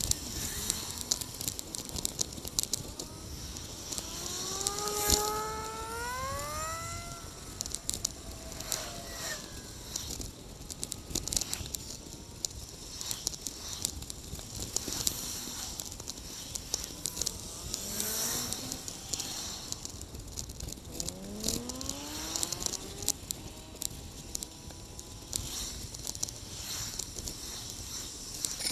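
Wind and road noise from a moving bicycle, with frequent rattling clicks from the bike. Twice, a motor vehicle's engine note rises in pitch over a few seconds, once a few seconds in and again about three-quarters of the way through.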